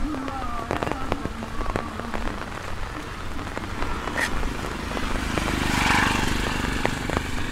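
Steady rain falling on a wet street, with scattered drops ticking sharply close by; the noise swells briefly about six seconds in.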